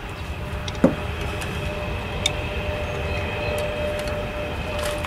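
Workshop noise during a brake job: a steady low rumble with scattered light clicks, a single clank about a second in, and a faint steady whine from about halfway.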